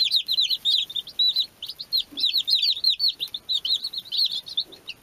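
A brood of baby chicks peeping all at once: a dense, unbroken stream of short high peeps, several a second, overlapping one another.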